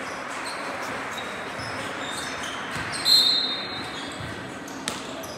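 Basketball game sounds in a gym: sneakers squeaking on the court in short high squeals, the loudest a little after three seconds, and a single sharp bounce or knock near the end, over steady crowd and player murmur.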